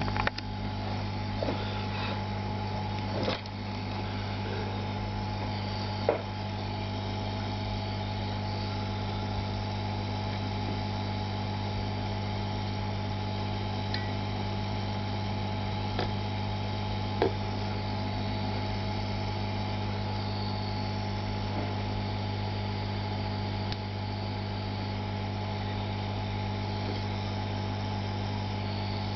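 Hot-air rework station's blower running with a steady hum, with a few light clicks or taps now and then.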